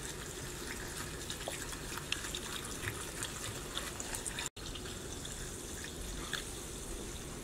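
Sparkling water poured in a thin stream into a glass carafe of sliced fruit and mint, fizzing with many fine crackling bubble pops. The pour stops after about five seconds and the fizz carries on. There is a split-second gap in the sound about halfway.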